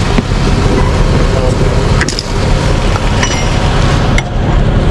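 A vehicle engine running steadily, with a few sharp clicks about two, three and four seconds in.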